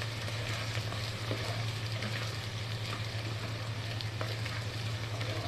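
Crushed garlic, ginger and red chilli flakes sizzling in hot oil in a pot as they are stirred with a plastic spoon, with small scattered crackles. A steady low hum runs underneath.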